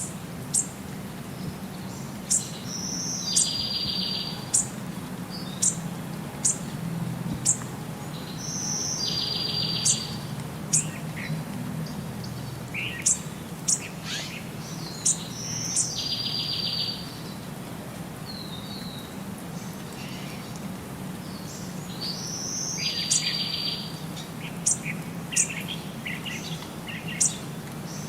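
A songbird singing a phrase that repeats about every six to seven seconds, a high note followed by a buzzy trill about a second long, with many short, sharp high chirps in between. A low steady hum runs underneath.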